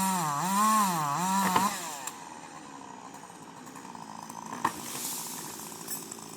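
Chainsaw running at high revs while cutting, its engine pitch swinging up and down about every half second. After about two seconds it gives way to a much quieter, faint noise with a single sharp knock.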